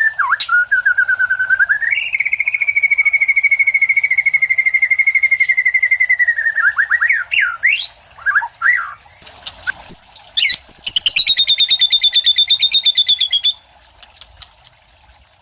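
White-rumped shama (murai batu) singing loudly. It holds a long rapid trill for several seconds, then gives quick up-and-down sweeping whistles and a higher, fast trill that cuts off abruptly near the end.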